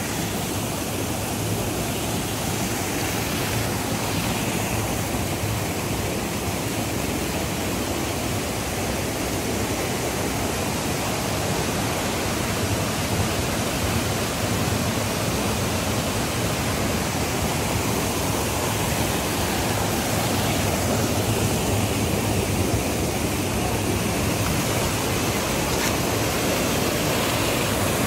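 Small waterfall and stream water rushing steadily over rocks into a pool.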